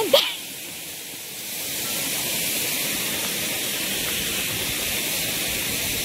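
Steady rushing of a waterfall. At the very start there is a brief loud sound sliding down in pitch, and the rushing dips for about a second before returning.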